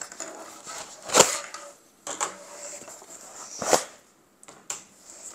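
M4 magazines being pulled one after another out of the stretchy elastic pouches of a Blue Force Gear Ten-Speed chest rig: magazine bodies scraping against the nylon with clacks, the two loudest about a second in and near four seconds.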